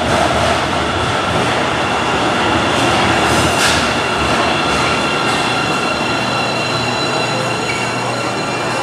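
Guangzhou Metro Line 3 train pulling into an underground station and slowing to a stop. Wheels rumble on the rails, with a steady high whine over them.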